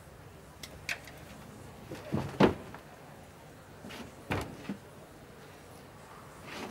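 A few scattered knocks and thuds, the loudest about two and a half seconds in, with lighter ones near the start and around four to five seconds in.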